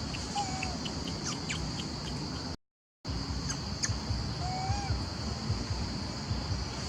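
Natural ambience: a steady high insect drone with scattered short chirps and two brief gliding calls. The sound cuts out completely for about half a second a little under halfway through.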